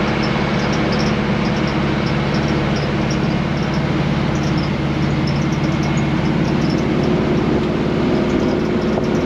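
Engine running steadily at idle, a constant low hum with no change in speed.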